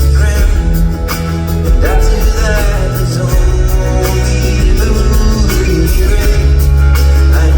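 Live concert music at full volume: an instrumental stretch of the song with a heavy, held bass and layered sustained tones, and a few brief wordless vocal lines.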